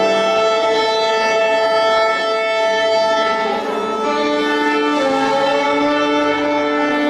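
String orchestra with violins and cellos playing slow, sustained notes, the melody shifting every second or two.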